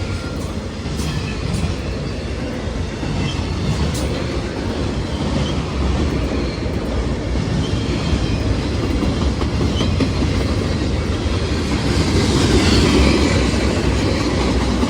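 CSX freight train's cars rolling past, wheels clicking over the rail joints over a steady rumble, with a few short faint squeals.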